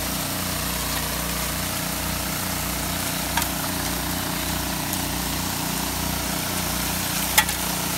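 Small gasoline water-pump engine running steadily as it feeds a Gold Designs highbanker, under a constant hiss of water spraying from the spray bar and pouring over the classifier and gravel. A faint click about three and a half seconds in and a sharper one near the end.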